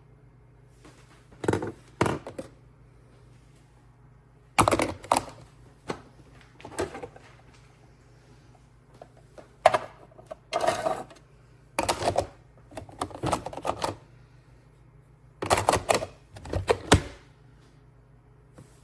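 Hard clicks and knocks in irregular clusters, from parts of a single-serve coffee maker being handled and fitted.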